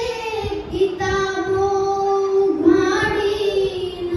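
Young girl singing into a handheld microphone, holding long drawn-out notes, with low rhythmic thumps underneath.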